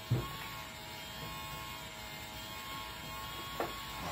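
Small electric fan motor of a desktop mini inflatable tube man running with a steady buzzing whine. A short loud sound comes just after the start, and two more come near the end.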